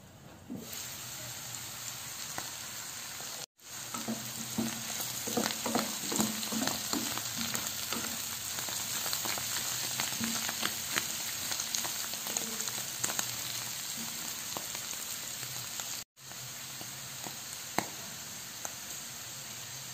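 Zucchini and mushrooms sizzling in butter in a nonstick frying pan, with a wooden spatula stirring and knocking through them for several seconds. The sizzle breaks off for an instant twice.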